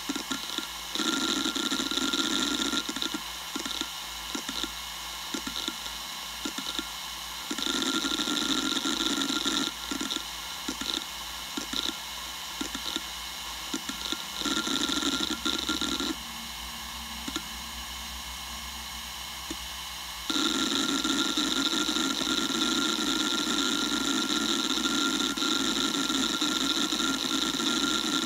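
Western Digital Raptor WD1600ADFD 10,000 rpm hard drive running, switching back and forth between loud stretches of continuous seek noise with a steady tone and quieter spells of scattered head clicks. The longest loud stretch starts about twenty seconds in.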